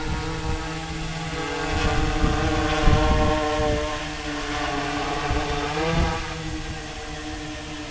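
Sky-Hero Spyder 6 hexacopter's six brushless motors spinning 16-inch props while it hovers overhead: a steady multi-tone buzz that swells about two to three seconds in and bends up in pitch around six seconds in as the throttle changes, over an uneven low rumble.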